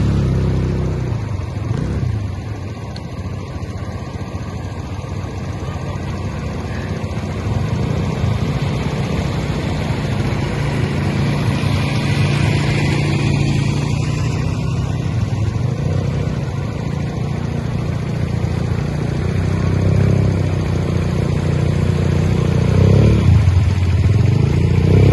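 Motorcycle engine running while it is ridden through water. The engine note swells and eases over a steady hiss of water.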